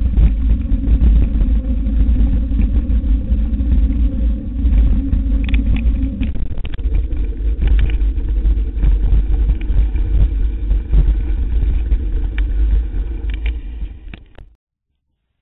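Low wind buffeting on the microphone and tyre rumble from an electric mountain bike riding fast on a paved path, with scattered clicks. The sound cuts off suddenly near the end.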